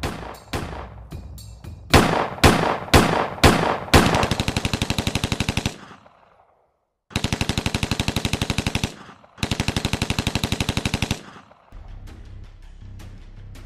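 Gunfire in a war film: a run of single shots about two a second, then three long machine-gun bursts separated by short pauses.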